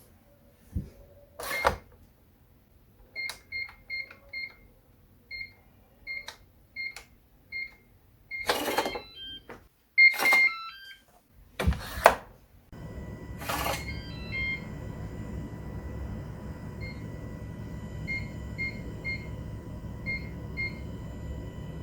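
Digital door lock: a string of short electronic keypad beeps, then the lock mechanism sounding in three loud bursts with a few chime tones as it locks and unlocks. A steady electronic hum then sets in, with more keypad beeps over it.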